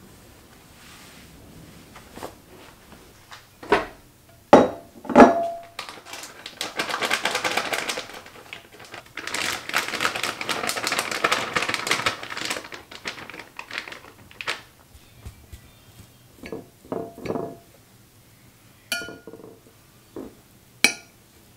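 A few knocks of kitchenware on a countertop, then grated coconut poured from a plastic packet into a glass bowl in two long rustling pours. Near the end, a metal spoon stirs the coconut and clinks against the glass bowl.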